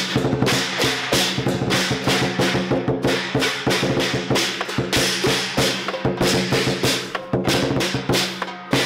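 Chinese lion-dance drum, a large tack-rimmed barrel drum, beaten fast with sticks in a dense percussion rhythm, with steady ringing tones sounding under the strikes.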